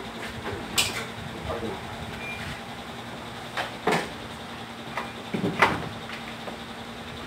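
Several short, sharp clicks and knocks from oscilloscope test leads and probe clips being handled at a car's engine bay, over a steady low hum.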